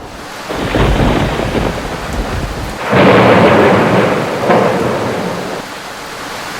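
Thunderstorm sound effect: steady rain with thunder rolling in, a first rumble about half a second in and a louder peal about three seconds in that fades away over the following seconds, leaving the rain.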